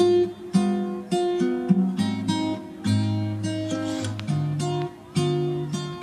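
Background music: an acoustic guitar playing plucked chords about every half second, each ringing and fading.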